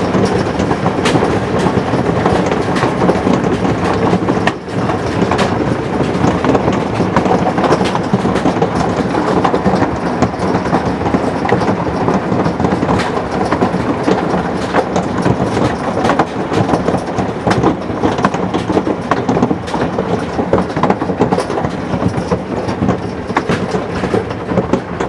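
Large hailstones pelting down in an intense hailstorm: a loud, dense, continuous clatter of impacts.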